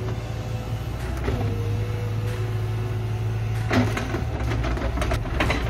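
Heavy machine engine running steadily at stump-removal work. A thin held whine starts about a second in, and a run of sharp knocks and clatters follows near the end.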